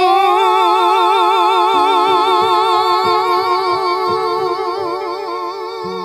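A male singer holds one long high note with wide, even vibrato. Plucked guitar notes come in underneath about two seconds in.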